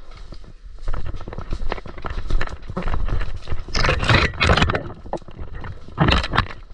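Rustling and crackling of leaves, twigs and dry undergrowth as someone pushes through brush on foot. Branches and leaves scrape against the camera, loudest about four seconds in and again near the end.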